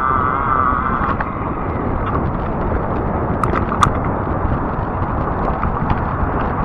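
Steady wind and tyre rumble from a fat-tire e-bike riding along a paved path, with a high motor whine that fades out about a second in. A couple of sharp clicks or rattles come about three and a half seconds in.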